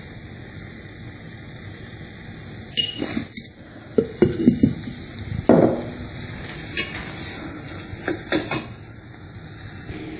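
Banana-flower curry sizzling steadily in a pot while a spoon is stirred through it, scraping and clinking against the pot several times.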